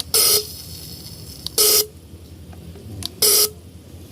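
Fuel injectors on an injector cleaning and testing machine spraying in three short hissing bursts, about a second and a half apart.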